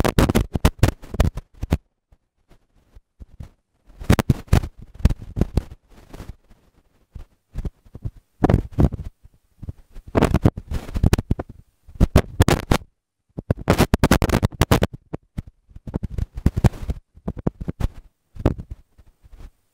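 Microphone handling noise: bursts of scratching and crackling from a wired earphone-style microphone being rubbed and fiddled with, coming in clusters of a second or two with short gaps.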